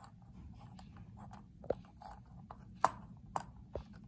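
Light handling noise and a few sharp little clicks of wooden popsicle sticks and a thin wooden stick being fitted and pushed together by hand, the loudest click just under three seconds in.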